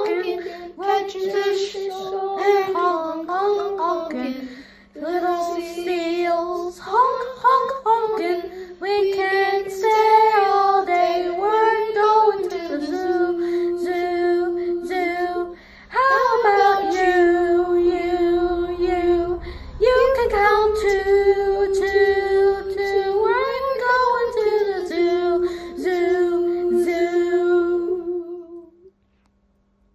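Boys' children's choir singing a children's song verse together, with long held notes; the singing ends about a second and a half before the end.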